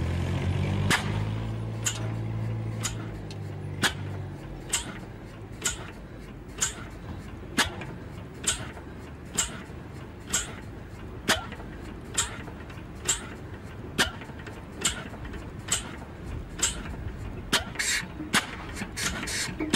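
Old single-cylinder engine with a heavy flywheel running slowly, a sharp knock on each firing about once a second, coming a little quicker near the end. A low hum fades out in the first few seconds.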